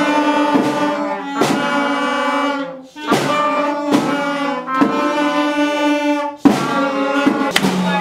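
School wind band, alto saxophones among them, playing sustained chords together, each chord started afresh every second or two with a short break about three seconds in.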